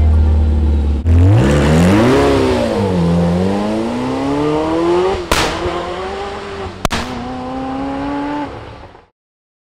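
Zenvo TSR-S's twin-supercharged V8 launching from a standstill: a steady low note, then about a second in the revs climb, dip, and climb again as the car pulls away. Two sharp cracks come a second and a half apart midway, and the engine note fades as the car draws off, cutting off suddenly near the end.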